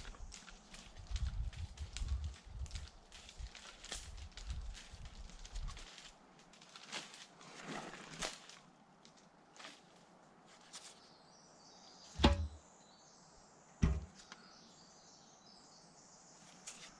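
Rustling and small clicks from a handheld camera over a low, uneven rumble. Then two dull knocks about a second and a half apart as a gloved hand handles the stone mailbox.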